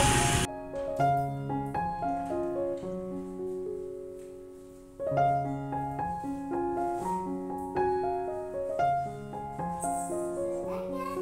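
Solo piano background music playing slow, gentle phrases of single notes and chords; one phrase fades out and a new one starts about five seconds in. At the very start a burst of street noise cuts off abruptly about half a second in.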